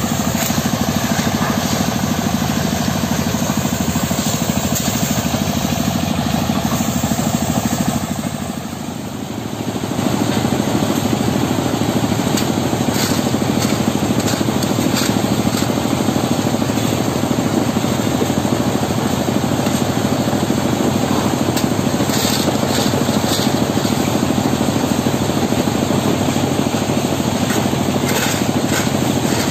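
Stone-crushing machinery running steadily and loudly, with a brief drop about nine seconds in. Now and then the short scrape of steel shovels digging into crushed stone sounds over it.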